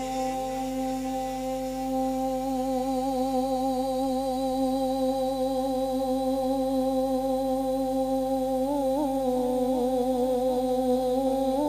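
A man's voice holding one long note into a microphone, steady with a slight waver, in a naat recitation. About eight seconds in it breaks into small melodic turns. It comes through the sound system with an echo that repeats the rise at its start.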